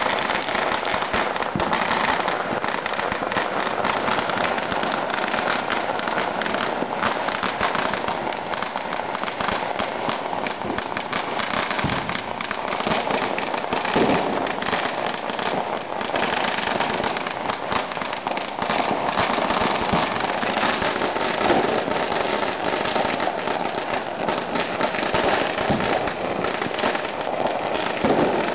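Strings of Chinese firecrackers going off in the street in a dense, unbroken crackle of rapid bangs, with a few louder bangs standing out now and then.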